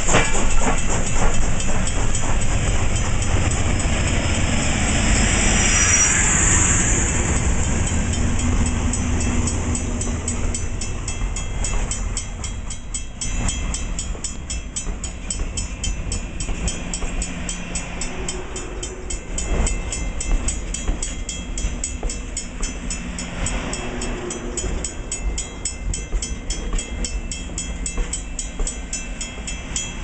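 Passenger train rolling past at low speed, behind a 2-8-2 steam locomotive and an FA-7 diesel unit. It is loudest in the first ten seconds as the tender and diesel go by, then settles to a softer rumble and wheel clatter as the passenger cars pass. A grade-crossing bell rings in quick even strokes throughout.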